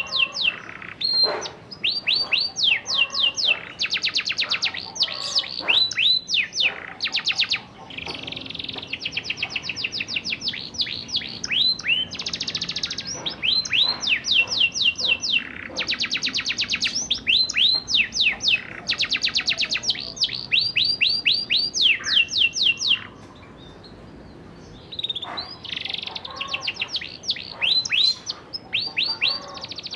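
Domestic canary singing a rolling song of fast trills, each a quick run of the same high note repeated many times, with a short break about three-quarters of the way through.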